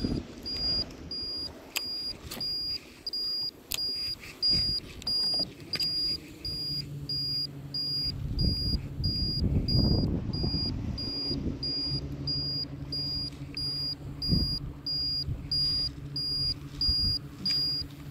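A high electronic beep repeating steadily, about one and a half beeps a second, over the low steady hum of a small electric motor that starts about six seconds in.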